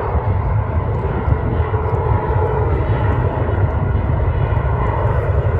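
Airliner engines, a loud steady roar with a deep rumble underneath and a faint steady whine.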